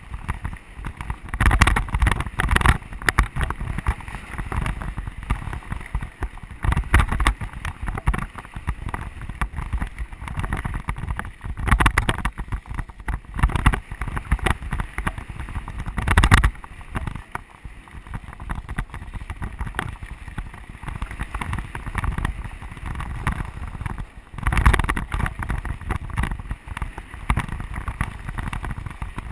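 Mountain bike on dry desert singletrack: tyres rolling over the dirt, the bike and camera mount knocking and rattling over bumps at an irregular pace, and wind buffeting the camera microphone.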